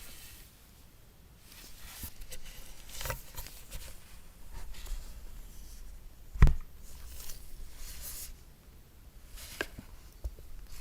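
Hands handling an iPad Pro Magic Keyboard and its packaging: soft rustling and light clicks, with one sharp knock about six seconds in.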